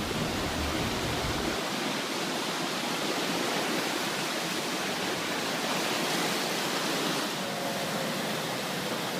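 Fast-flowing floodwater rushing in a steady, continuous stream of water noise.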